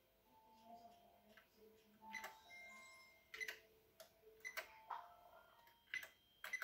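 Single key presses clicking on a Juku E5101 computer keyboard, spaced about half a second to a second apart, as a file name is typed slowly letter by letter.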